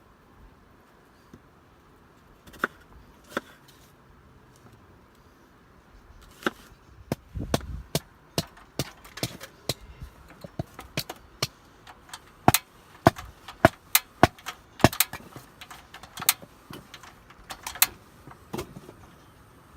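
A run of irregular sharp knocks and clicks, sparse at first, then about one to two a second for most of the stretch.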